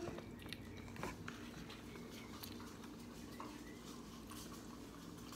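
Faint eating sounds: quiet chewing and a few small clicks and ticks of mouth and fingers at a foam takeout container, over a low steady hum.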